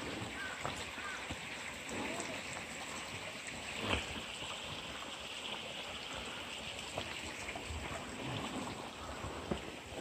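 Shallow stream water trickling and splashing over rocks, a steady hiss that grows fuller about four seconds in, with a few scattered knocks.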